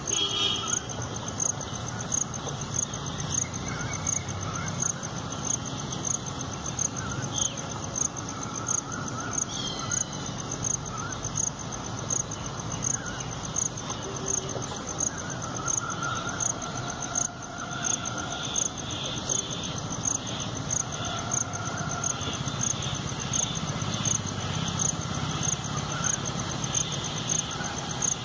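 An insect chirping steadily, a short high chirp repeating evenly about three times every two seconds, with fainter irregular calls alongside.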